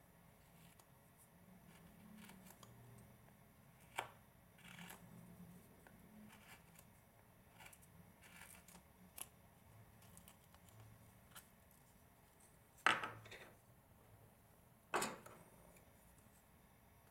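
Small carving gouge paring a hand-held wooden carving in short, quiet scraping cuts, with a few sharp clicks. Two louder knocks come about two seconds apart near the end.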